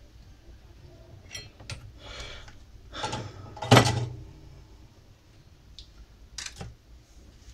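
Workbench handling noises as the soldering iron and tools are put down: a few light clicks and a rustle, then a louder knock with a short ring about four seconds in, and two more clicks near the end.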